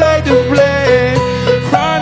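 Banjo picking along with a male voice singing over strummed acoustic guitar.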